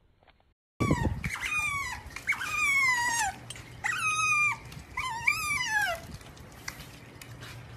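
An otter squeaking: about five high, falling squeals in quick succession, starting about a second in, the last one wavering up and down before it drops away.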